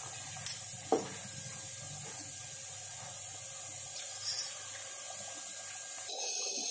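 A metal ladle clinking and scraping against an aluminium pressure cooker pot while thick curry is stirred, with a few sharp clinks in the first second and one more short clatter about four seconds in.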